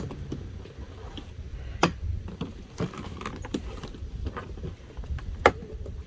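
Scattered sharp clicks and knocks of a folding plastic kayak's panels, rails and latches being handled and snapped into place, the loudest about two seconds in and again near the end, over a low steady rumble of wind.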